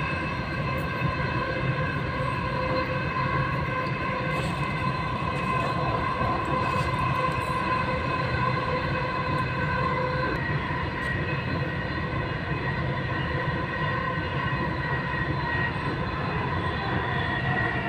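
Dubai Metro train running, heard from inside the carriage: a steady low rumble with a steady whine of several tones over it.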